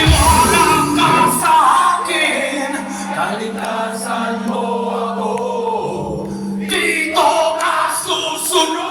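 Live rock band playing with a male singer's voice; the drums drop out after about a second and a half, leaving the vocals over a long held low note, and the fuller band sound comes back about seven seconds in.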